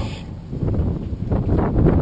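Wind buffeting a GoPro camera's microphone, a rough low rumble that gusts louder from about half a second in.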